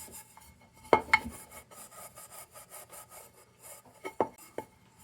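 Hand scrubbing on a rusty metal lantern rim: scratchy, uneven rubbing strokes, with a few sharp knocks about a second in and near the end.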